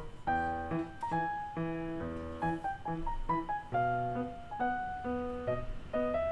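Instrumental background music: a melody of separate struck notes, a few a second, over sustained low notes.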